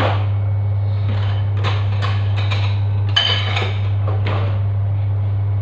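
A steady low hum with a run of clinks and clatters of dishes and utensils, busiest a little past the middle.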